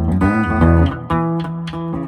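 A Les Paul-copy electric guitar with a bolt-on neck being played: single notes, a few bent up and down in pitch in the first half, then held, ringing notes.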